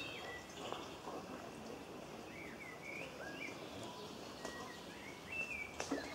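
Birds chirping over a steady outdoor background hiss, with short rising and falling calls repeated several times in the middle.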